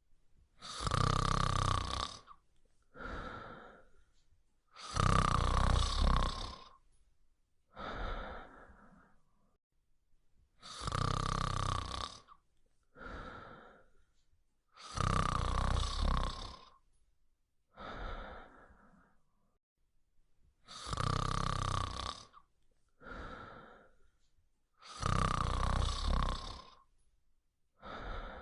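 Loud snoring of a sleeping dog in a slow, regular rhythm. A long snore on the in-breath is followed by a shorter, quieter breath out, about every four seconds, with a brief pause after every second snore.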